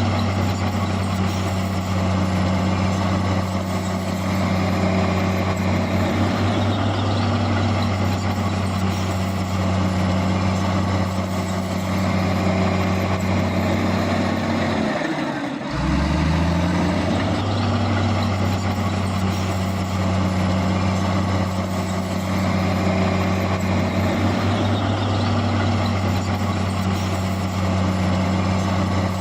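Heavy diesel engine running steadily under load. About halfway through, the engine note drops briefly, then climbs back up and runs on.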